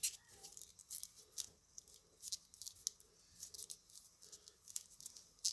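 Small plastic pieces handled: scattered light clicks and rubbing as a soft rubber grip is worked onto a plastic diamond painting drill pen, a tight fit.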